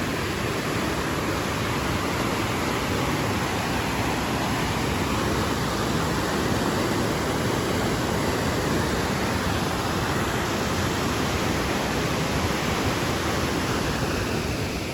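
Fast-flowing river water rushing steadily, an even noise with no breaks.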